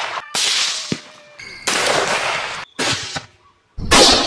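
A rapid series of rifle shots, about one a second, each a sharp report with a rolling tail that is cut off abruptly before the next. A single sharp crack falls between them about a second in.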